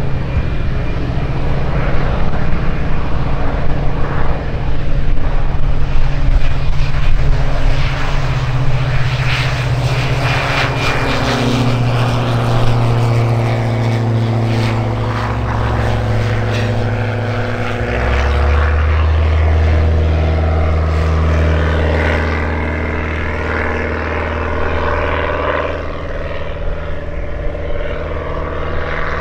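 The piston engine and propeller of a light single-engine high-wing plane droning as it flies past low. Its pitch steps lower about two-thirds of the way through.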